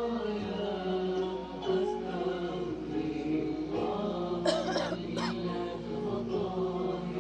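Singing with long held, chant-like notes, with a brief rough noise about four and a half seconds in.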